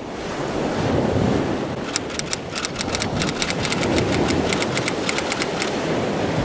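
Surf washing on a beach with wind on the microphone, fading in over the first second. From about two seconds in, a run of sharp crackles lasts for a few seconds.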